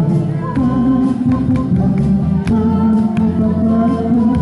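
Live music through a PA: a man singing a slow Korean pop ballad, accompanied by acoustic guitar and keyboard.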